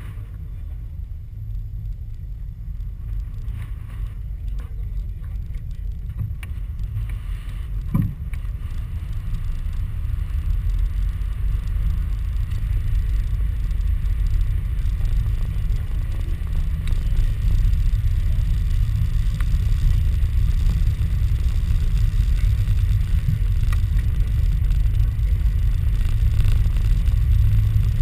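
Low rumble from inside a moving cable car cabin, growing steadily louder, with one sharp knock about eight seconds in.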